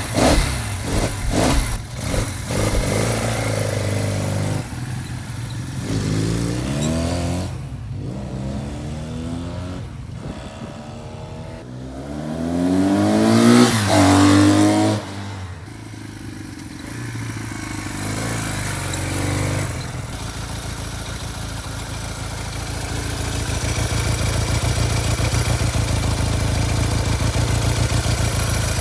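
1971 Honda SL175's parallel-twin motorcycle engine running and being revved several times with rising pitch. The loudest rev comes about halfway through and drops off suddenly, then the engine settles into a steady idle.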